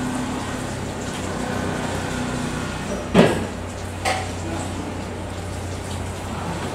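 Steady restaurant background noise with a low hum, broken by two sharp knocks about three and four seconds in, the first the louder.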